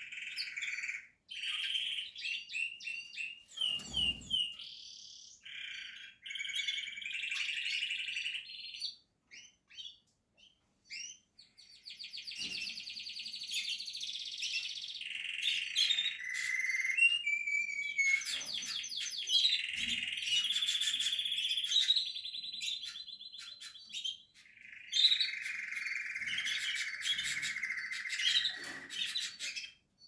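Portuguese Harlequin canary singing: long phrases of rapid trills, rolled notes and quick chirps, with a lull of a couple of seconds about a third of the way through. Two soft low thumps, about four seconds in and again near two-thirds of the way.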